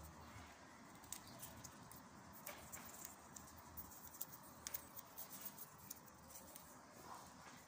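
Faint, irregular crackling and ticking of black adhesive tape being pulled off its roll and wound around a citrus graft.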